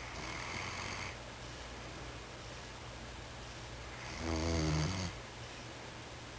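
Dog snoring in its sleep: a soft, breathy snore at the start, then a louder, pitched snore about four seconds in.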